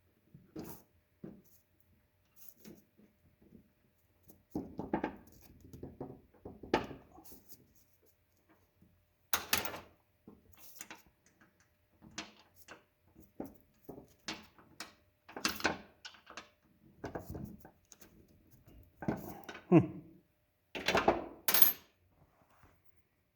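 Irregular small metallic clicks, taps and handling knocks as a tiny C-clip is pushed by hand onto the chain guard roller post of a Stihl MS362 C chainsaw. The clip keeps failing to seat.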